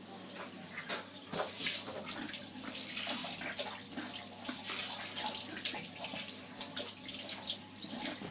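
Water running steadily from a tap, with uneven splashing.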